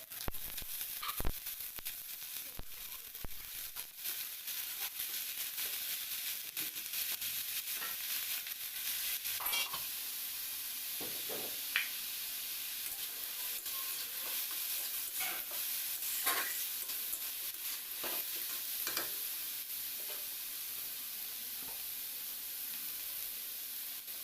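Food sizzling steadily in hot oil in a pan while it is stirred, with occasional taps and scrapes of a spatula against the pan.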